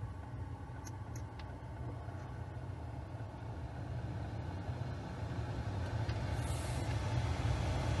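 Electric car's climate-control blower running and growing steadily louder as the air conditioning is set to maximum cooling, with a few faint clicks about a second in.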